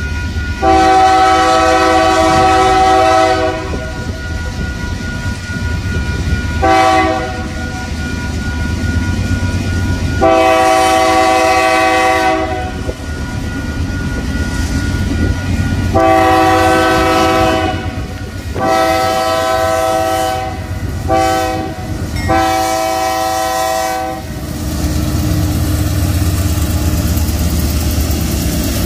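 Union Pacific diesel locomotives at the head of a double-stack container train sounding a multi-note air horn chord in about seven blasts: a long one, a short one, then several longer ones, the last ending about 24 seconds in. Under the horn, and alone after it stops, the diesel engines and wheels on the rail rumble steadily as the locomotives pass close by.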